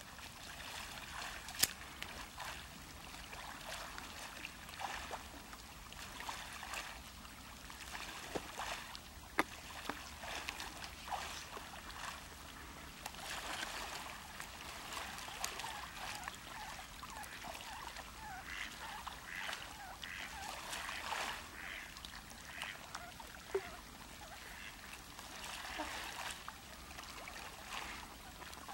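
Trumpeter swans feeding in open water, splashing and dabbling, with soft honking calls now and then. There are two sharp clicks, one near the start and one about nine seconds in.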